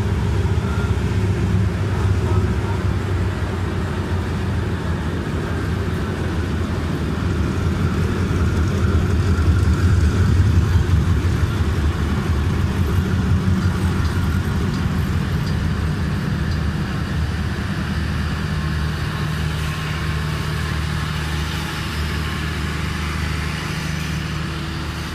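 Hitachi diesel locomotive's engine running under power as the train pulls out and passes close by. It is loudest about ten seconds in as the locomotive goes past, then eases to a steadier, lower drone as the coaches roll by.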